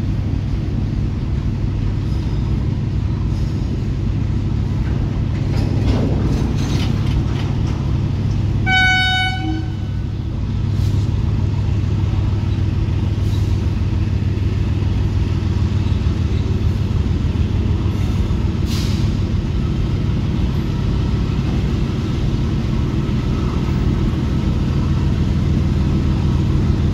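Covered freight wagons of a long goods train rolling past: a steady low rumble and clatter of steel wheels on rail. About nine seconds in, a horn sounds one short single-note toot.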